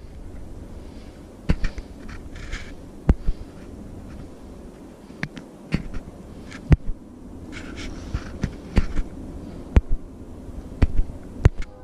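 Handling noise from a hand-held action camera: about a dozen sharp clicks and knocks at irregular intervals over a low rumble, with a few short breathy hisses.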